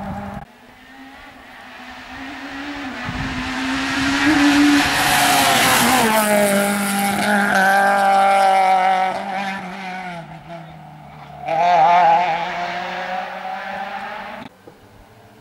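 Rally car passing at speed. Its engine builds to a loud pass about five to six seconds in, drops in pitch as it goes by and moves away, and swells briefly again about twelve seconds in.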